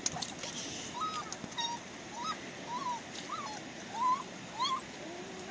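A dog whimpering: about seven short high whines in a row, each rising and falling in pitch, the loudest near the end.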